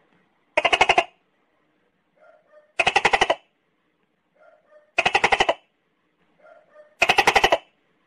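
Tokay gecko calling: four loud calls about two seconds apart, each a quick string of pulses lasting about half a second, with softer short notes between them.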